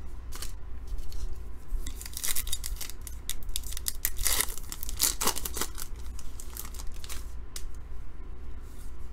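Foil wrapper of a pack of baseball cards being torn open by hand. There are a few quick rips and crinkles from about two to six seconds in, then the stack of cards is handled.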